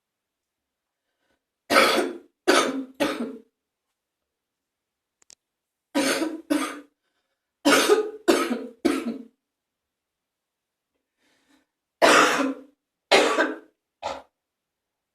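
Morning phlegmy cough: a person coughing wetly in four bouts of two or three harsh coughs each, with short silences between them, bringing up phlegm.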